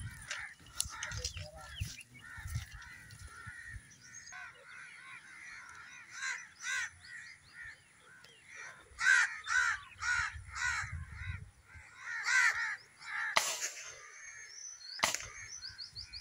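Crows cawing, harsh calls repeated in runs of several at a time, with two sharp clicks under two seconds apart near the end.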